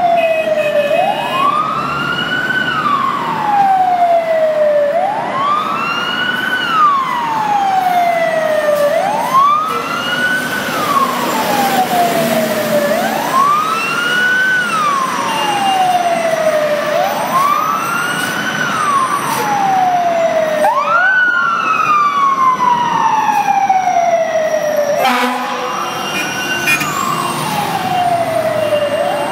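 Fire truck siren wailing in slow cycles: a quick rise and a longer fall, repeating about every four seconds. A few seconds before the end the cycle breaks and another sweep starts.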